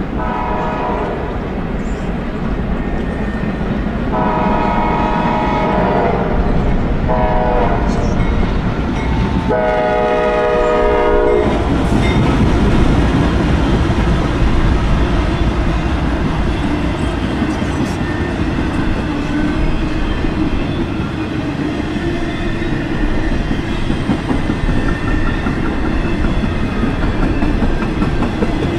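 Diesel locomotive horn blowing the grade-crossing signal, four blasts (long, long, short, long), in the first dozen seconds. After that the locomotive's diesel engine runs steadily, with the clickety-clack of freight car wheels as the train passes.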